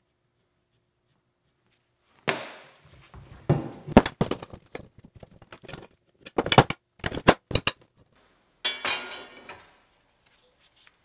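Steel flat bar being handled on a wooden workbench: a string of sharp clanks and knocks starting about two seconds in, then a short scrape of metal near the end.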